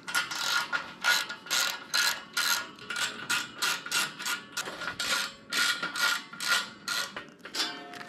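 Hand ratchet wrench clicking in quick, repeated back-and-forth strokes, about two to three a second, backing bolts out of an attic fan cover. The clicking stops shortly before the end.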